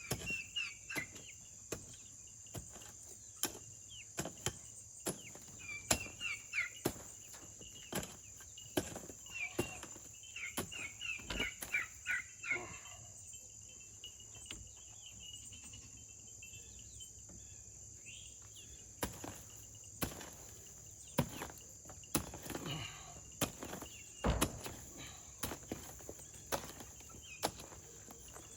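Mattock blades striking into soil again and again at an irregular pace, digging a trench by hand, over a steady high drone of insects.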